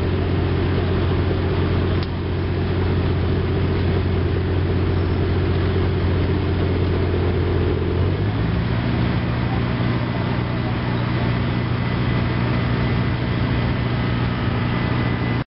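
An engine running steadily at a constant pitch, which steps up to a higher, faster pitch about eight seconds in. A brief knock about two seconds in.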